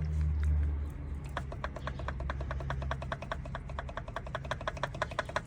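2005 Dodge Ram 1500 with a low drone that drops off about three seconds in, and a fast even clicking, about seven ticks a second, starting about a second and a half in. This is the noise on deceleration that the owner suspects comes from a loose front differential stub shaft.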